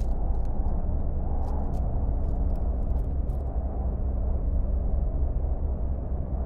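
A steady low rumbling drone, with faint scattered crackling clicks over it in the first half.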